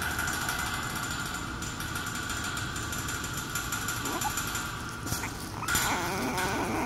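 Boston terrier puppy whimpering: a brief rising squeak about four seconds in, then a wavering whine lasting about a second near the end, over a steady background hiss and hum.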